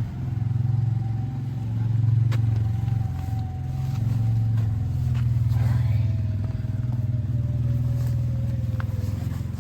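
A motor vehicle's engine running steadily, a low hum with a thin whine above it; it gets quieter near the end.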